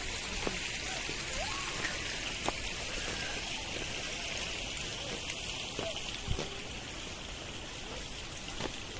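Steady hiss of running stream water, with a few faint knocks scattered through it.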